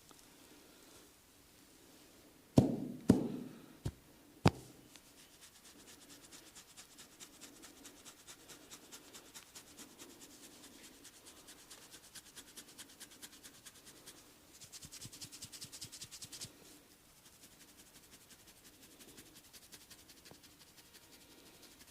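Barber's hands massaging: two loud slaps and two sharp clicks a few seconds in, then a fast, even run of light strokes on skin that turns louder and crisper for about two seconds past the middle.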